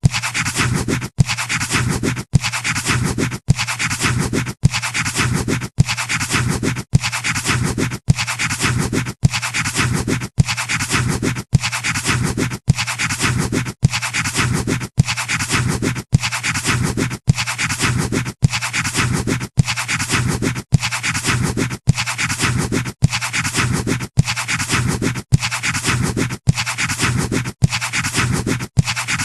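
Pencil scratching on paper, a short clip of drawing strokes looped over and over, with a brief gap about once a second.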